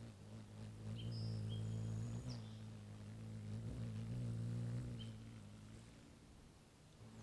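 Steady low buzzing hum of a hovering hummingbird's wings, wavering slightly, with a few short high chirps about a second in, again around two seconds in and near five seconds in.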